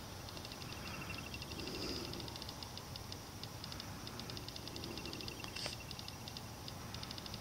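Night insects ticking in rapid, uneven trains of high-pitched clicks, with one sharper click just past halfway.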